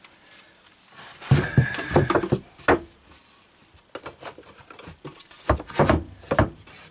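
Cordless drill running for about a second, driving a screw into a wooden shelf frame, with a steady whine. This is followed by a series of knocks and clicks from the drill and wood being handled.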